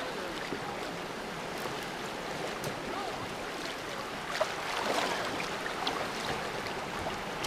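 Shallow river current rippling steadily over a rocky riffle, with a few brief splashes a little past halfway as someone wades in the water.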